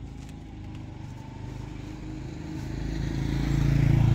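A motorbike engine running and drawing closer, growing steadily louder toward the end.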